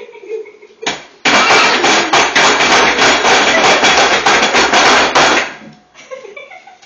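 A rapid, loud flurry of hand claps and slaps by the people at the table, starting about a second in and stopping abruptly after about four seconds.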